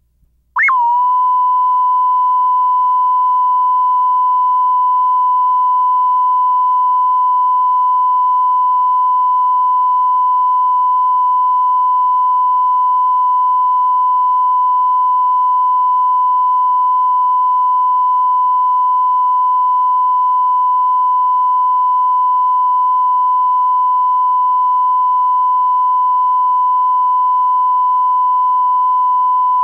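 Videotape bars-and-tone line-up signal: a steady 1 kHz reference tone played with SMPTE colour bars, starting abruptly with a brief glitch about half a second in and holding at one constant pitch and level.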